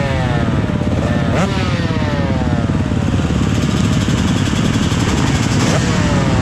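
Motocross bike engine at speed: the revs snap up sharply, then fall away slowly as the throttle is rolled off, twice, over a heavy low rumble.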